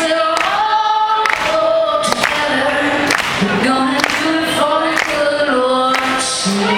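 A woman's lead voice singing long held notes with a group of backing voices in harmony, largely without instruments, over sharp hits keeping a steady beat.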